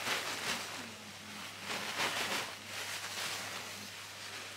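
Thin plastic disposable bed sheet crinkling and rustling as it is shaken out and unfolded, louder at the start and again about two seconds in.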